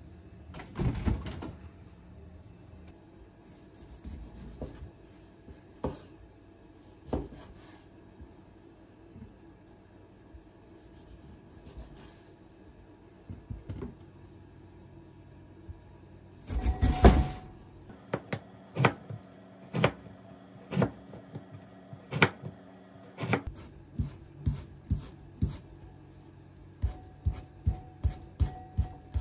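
Kitchen knife cutting a daikon radish on a wooden cutting board: single cuts about a second apart, then a quicker run of about three cuts a second near the end. Before that come kitchen handling knocks, with a door-like thud about a second in and a louder clatter about halfway.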